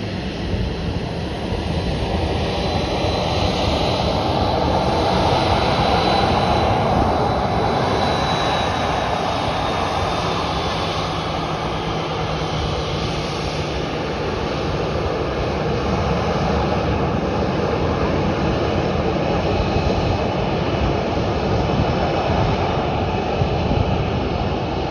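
Jet airliner's engines: a loud, steady rush of noise with a high whine through the first third that drifts slightly lower in pitch.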